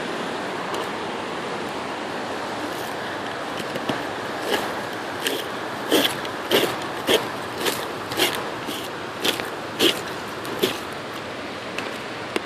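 Wind buffeting the microphone, with a run of sharp knocks on the ground starting about four seconds in, roughly two a second with short pauses, as the ground is struck to hear whether it sounds hollow.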